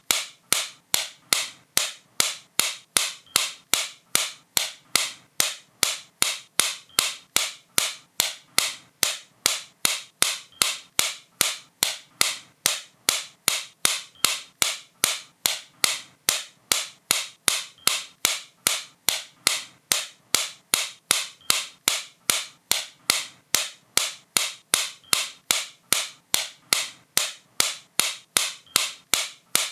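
A sharp click repeated at a steady, even pace of about two and a half per second, each one crisp and quickly fading.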